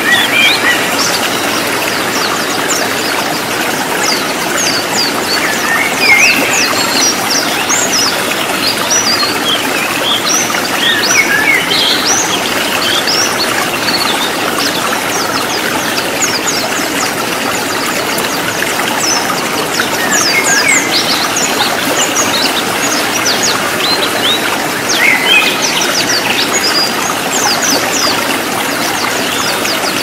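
White-eyes (pleci) singing a fast twittering song: clusters of quick, high, downward-sweeping chirps over a steady rush of stream water.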